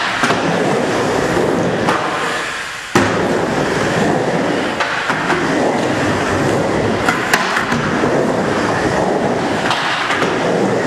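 Skateboard wheels rolling on a vert ramp, a continuous rumble as the skater carves back and forth. About three seconds in the rumble briefly drops away and then a sharp smack sounds, with a few lighter clacks later on.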